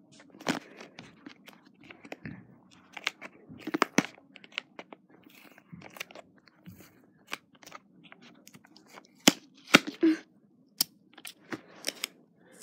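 Cardboard and plastic packaging of a wireless speaker's box being handled and picked at close by, giving irregular clicks, scratches and crackles, with a few louder snaps about nine to ten seconds in.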